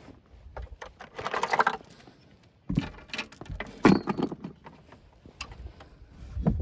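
Metal tools and parts being handled and clattering: irregular clinks and knocks, with two louder flurries about a second in and again around three to four seconds.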